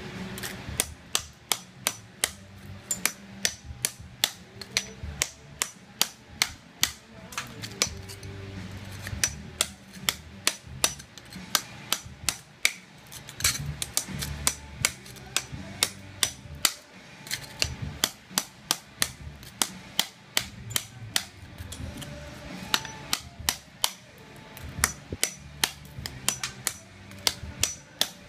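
Hammer striking a flat chisel over and over, about two or three sharp blows a second, chipping ceramic floor tile and its thinset mortar off the floor.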